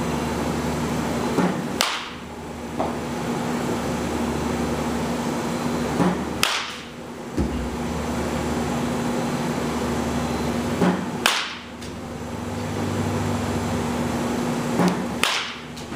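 Baseball batting practice: a bat hitting a ball four times, about every four and a half seconds, each sharp crack preceded by a softer knock about half a second earlier. A steady hum runs underneath.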